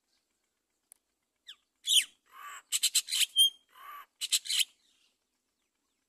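Great mynas calling at the nest: a short falling chirp, then harsh, raspy chattering calls in two bursts, from about two seconds in to nearly five seconds.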